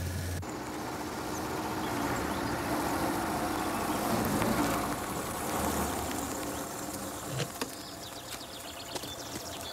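A Renault saloon car driving up and pulling to a stop, engine running, swelling about four to five seconds in and then dropping away. A couple of sharp clicks near the end as the car door opens.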